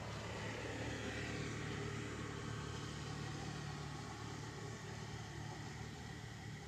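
A motor vehicle's engine running steadily as it passes, loudest in the first few seconds and slowly fading after.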